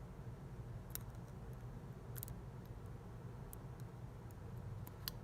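A few faint, sharp clicks, about four, as a small driver pin and the tool handling it tap against the Master Lock 410 LOTO's lock core while the pin is worked into its chamber, over a steady low hum.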